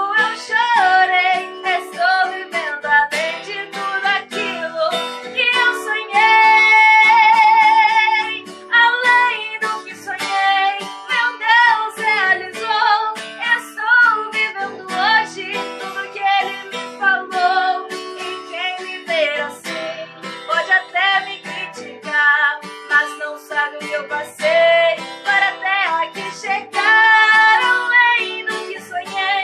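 Background music: a song with a solo singing voice over strummed acoustic guitar, with a long held, wavering note about six seconds in.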